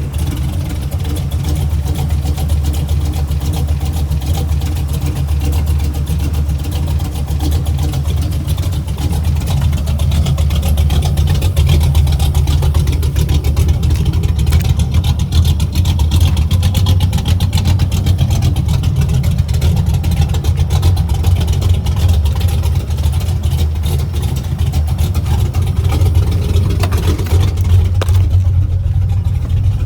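Chevy truck's V8 engine running loud and deep, steady throughout with only small rises and falls.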